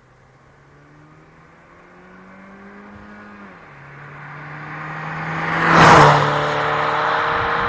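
Opel Vectra C 2.0 turbo four-cylinder (Z20NET) on its stock exhaust, accelerating toward and past the microphone. The engine note rises, drops with a gear change after about three and a half seconds, then rises again. It is loudest as the car passes, about six seconds in.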